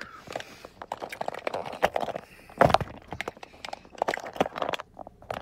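Handling noise of a phone being gripped and moved about: fingers and skin rubbing on the microphone, with scattered clicks and crackles and one louder knock about two and a half seconds in.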